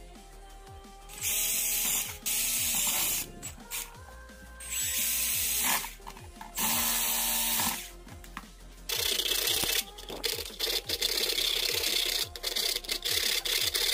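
Cordless drill with a step bit boring through the plastic lid of an electrical junction box in four short bursts of about a second each, then a hand file working back and forth in the plastic to square out the hole. Background music plays throughout.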